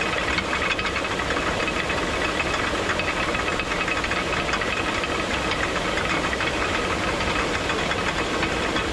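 Traditional Nepali water mill (ghatta) running: a steady rushing of water with a rapid, continuous clatter from the turning millstone.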